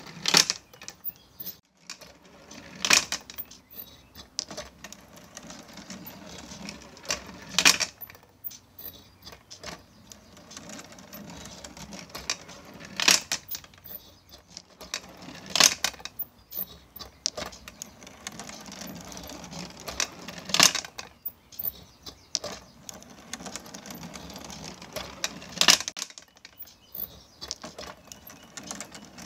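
Marble-run automaton driven by a small gear motor: a low steady hum and constant light ticking from the mechanism, with glass marbles clicking along the run. Sharp clacks of marbles striking come every few seconds, about seven in all.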